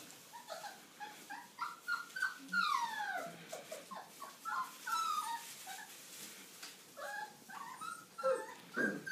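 Five-week-old Old English Sheepdog puppies whimpering and yipping in many short high calls, with one longer whine falling in pitch about three seconds in.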